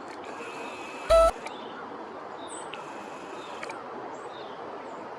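Outdoor pond-side background with a steady rushing noise and faint, high bird chirps and calls. About a second in, one loud, very short pitched sound that steps up in pitch stands out above everything else.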